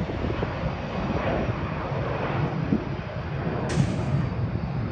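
Jet airliner engine noise: a steady rumble and roar from an aircraft at the airport.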